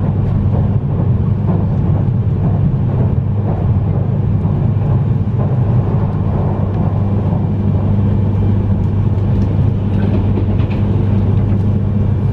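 Steady running noise of a Yamagata Shinkansen E3-series train heard from inside the passenger cabin: a continuous low hum with wheel and track rumble as it runs along at speed.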